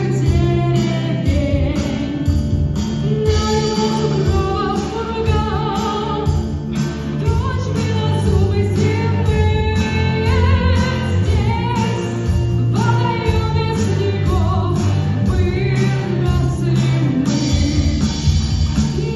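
A rock band playing live, with singing over bass, drums and guitar and a steady beat.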